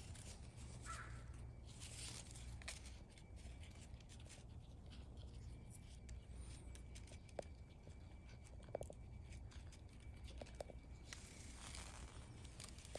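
Quiet handling of a fruiting branch: faint rustling of leaves and twigs with a few soft clicks, over a low steady hum.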